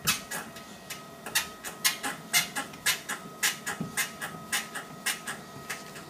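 Sole F63 treadmill squeaking sharply under each footstep as someone walks on the belt, about two squeaks a second. It is a recurring squeak that oiling the incline lowering arm silenced only for a couple of weeks, and whose source the owner has not traced.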